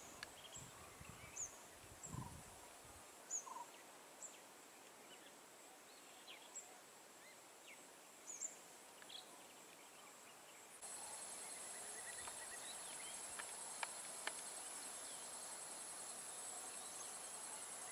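Faint forest ambience: scattered short bird chirps, a low rumble that fades out about three seconds in, then a steady high-pitched insect drone starting abruptly about eleven seconds in.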